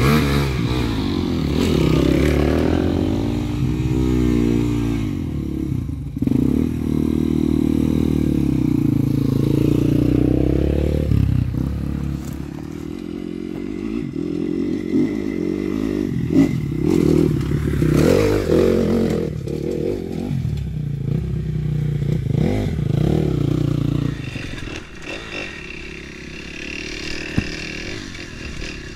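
Off-road motorcycle engine running and revving up and down as the bike rides a trail; it gets quieter about 24 seconds in.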